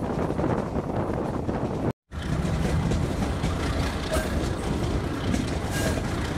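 Metre-gauge passenger train running, heard from inside the moving coach: a steady rumble of wheels on rail with the diesel locomotive's engine. The sound breaks off for an instant about two seconds in, then carries on.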